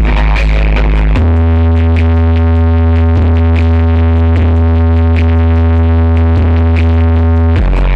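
Very loud electronic dance music from a sound horeg loudspeaker rig. A deep synth bass note is held from about a second in until near the end, with an even beat running over it.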